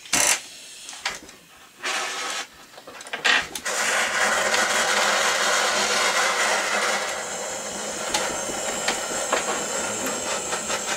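Hand-held gas torch: a sharp pop right at the start as it is lit, a couple of knocks, then the flame hissing steadily from about three and a half seconds in. The flame is heating borax flux onto the pieces of a cross before silver soldering.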